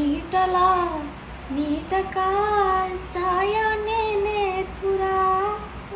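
A high voice singing alone, with no instruments, in long held notes that bend up and down, in several short phrases.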